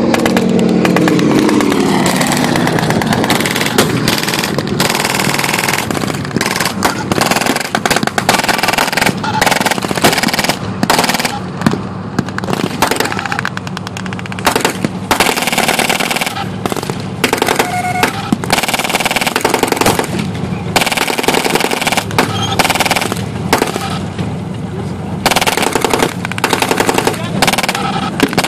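Rapid bursts of blank machine-gun fire, crack after crack, going on in uneven volleys. Over the first two seconds an aircraft engine passes low overhead, its note falling in pitch.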